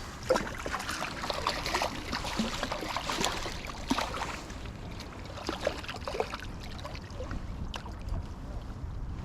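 River water splashing and sloshing in irregular bursts, thickest in the first few seconds then tapering to a few scattered splashes, over a steady rumble of wind on the microphone.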